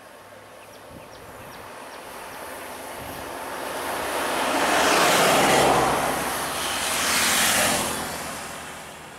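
A road vehicle passing close by: rushing tyre and engine noise that builds for several seconds, peaks twice near the middle, then fades away.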